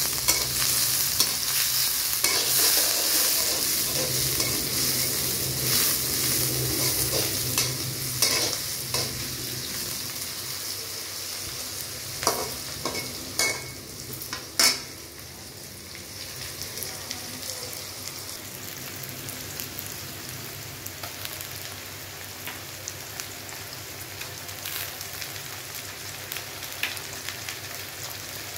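Sliced onions with bay leaves and whole garam masala sizzling in hot oil in a metal karahi, stirred with a flat metal spatula that scrapes the pan. The sizzle is loudest in the first ten seconds and then dies down. A few sharp knocks of the spatula on the pan come about halfway through.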